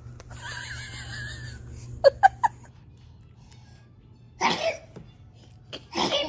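Baby sneezing again and again: three quick, sharp little sneezes about two seconds in, then two fuller sneezes later on.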